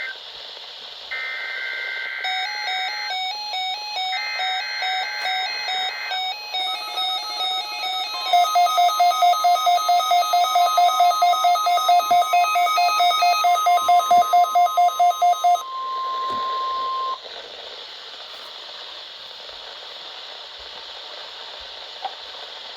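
Several weather alert radios sounding at once. A steady NOAA Weather Radio 1050 Hz warning alarm tone runs for about nine seconds, with the receivers' electronic alert beeps layered over it, the loudest a rapid beeping of about three a second. Everything stops by about 17 seconds in, leaving the radio's steady static hiss.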